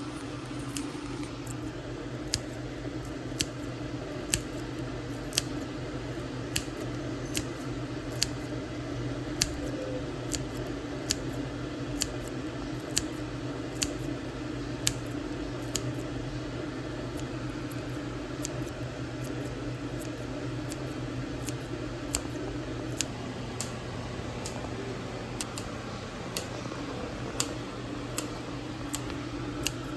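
A knife chopping on a cutting board: sharp clicks about once a second, over a steady low hum.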